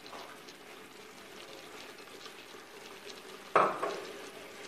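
Food sizzling and simmering in a clay tagine on a gas burner, a steady faint hiss with fine crackle. A single sharp knock sounds about three and a half seconds in.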